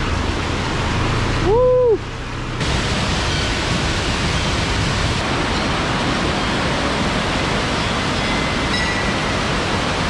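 Steady rush of flood-swollen river water pouring over a causeway and down rocky falls. About one and a half seconds in, a short tone rises and falls once.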